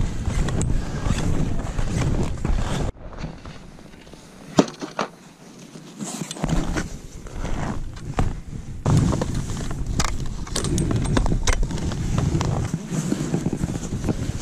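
Wind rumbling on a body-worn camera's microphone, dropping away abruptly about three seconds in. Sharp clicks and scrapes of skis and poles on snow follow, and the wind rumble comes back about nine seconds in.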